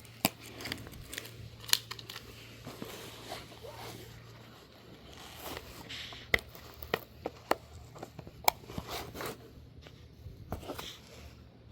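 Scattered light clicks, taps and rustles of a box and its packaging being handled and opened.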